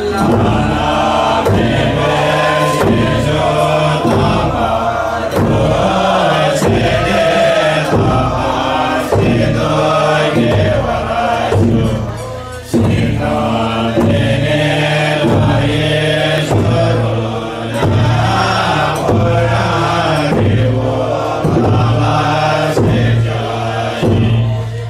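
Buddhist ritual chanting of a funeral rite: several low voices chant in unison on a steady droning pitch, with regular struck percussion beats.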